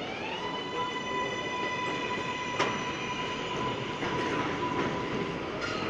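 R188 subway train pulling away, its propulsion whine rising in pitch and then holding a steady tone over the rumble of wheels on the rails, with one sharp clack about two and a half seconds in.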